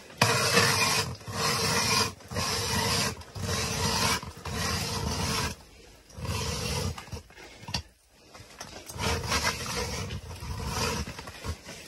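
Hand ice auger's blades biting and shaving through ice as the crank is turned: a rough rasping grind in strokes about once a second, with short gaps between. The auger is working hard, with snow building up in it.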